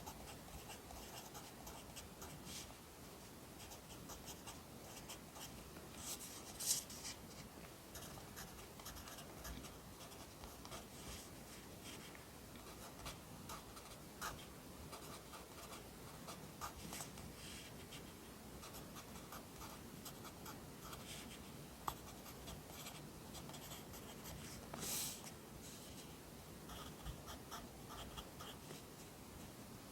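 Pencil writing Korean script on paper: a steady run of short, soft scratching strokes, with a sharper louder stroke about seven seconds in and a longer louder scrape about 25 seconds in.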